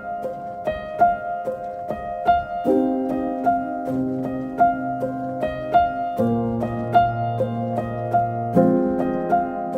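Background music: light piano-like melody of plucked notes, about two a second, over sustained chords that change every few seconds.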